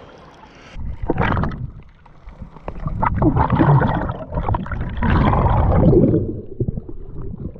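Water sloshing and gurgling over the microphone of a waterproof action camera held at the surface, with a splash about a second in and a longer muffled, rumbling stretch while the camera is under water. It goes quieter near the end once the camera comes up.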